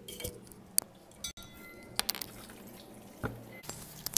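Scattered small clinks and taps of kitchen dishes and utensils, with some liquid dripping, while a marinade is being mixed.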